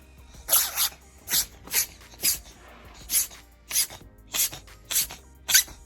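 A congested pet sneezing over and over: about ten short, sharp, hissy sneezes at irregular intervals.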